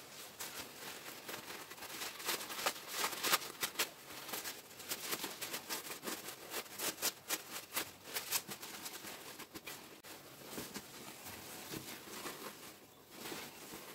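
Hands turning a lined dress bodice with tulle net sleeves right side out: fabric and tulle rustling in quick, irregular handling noises, quieter near the end.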